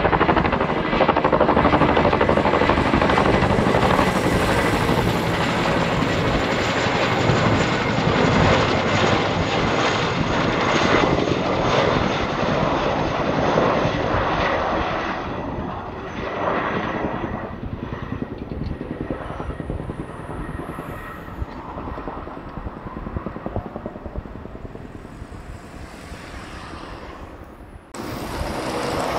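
Boeing CH-47 Chinook tandem-rotor helicopter flying overhead, its rotors beating rhythmically over the turbine noise. It is loud for the first half and fades as it moves away, with an abrupt change to a louder sound near the end.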